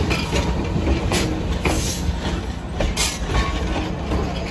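Passenger coaches of a heritage train rolling past at close range: a steady rumble of steel wheels on rail, with irregular clicks as the wheels cross rail joints.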